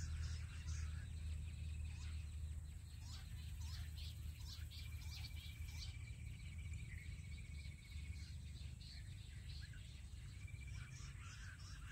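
Wild birds chirping in open scrub, with many short falling calls scattered throughout. A steady trill runs for a few seconds in the middle. Under it all is a low steady rumble.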